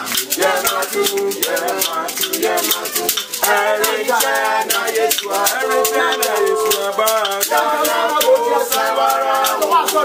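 Voices singing a song, accompanied by a shaker rattle that keeps a fast, even beat.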